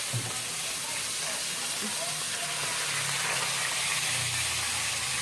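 Chicken pieces frying in hot oil in a pan, a steady sizzling hiss.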